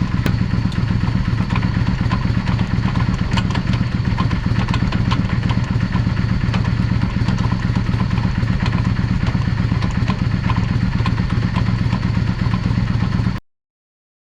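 Yamaha Drag Star V-twin motorcycle engine running steadily, with many light ticks and clicks over it; the sound cuts off suddenly near the end.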